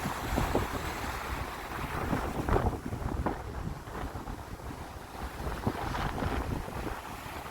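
Sea waves washing and splashing, with wind buffeting the microphone as a low rumble. A stronger splash comes about two and a half seconds in.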